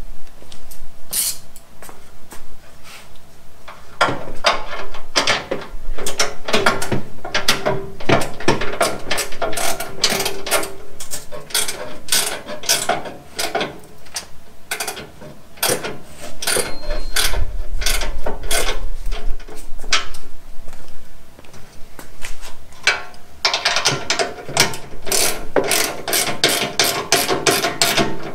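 Hand ratchet wrench clicking in several quick runs, with short pauses between, as the rear bumper bolts are tightened.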